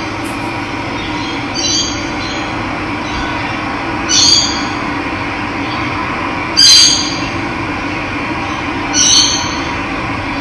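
Steady rush of running water, with a bird repeating a short, harsh call four times, about every two and a half seconds. The third call is the loudest.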